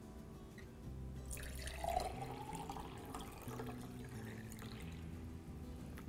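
Water poured from a plastic tub into a glass mason jar, splashing in starting about a second in, with a faint tone that rises as the jar fills.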